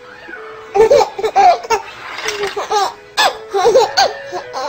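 Two babies laughing at each other in repeated bursts of high giggles, one cluster about a second in and another past the middle.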